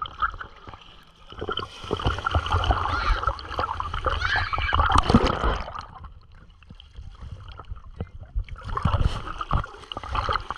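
Seawater splashing and sloshing in two long stretches, with a quieter lull about six to eight seconds in.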